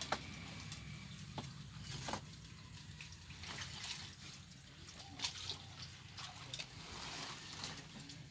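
Water trickling and dripping into a muddy water-filled pit, with scattered small drips and splashes over a low steady background.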